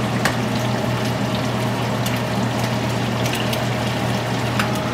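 Eggs frying in duck fat in a cast iron skillet, a steady sizzle with scattered small pops, over the constant hum of the stove's exhaust fan.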